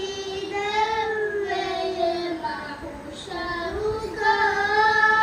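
A group of children singing a madhaha, a devotional song, in unison without instruments, with long held notes and a brief pause about two and a half seconds in.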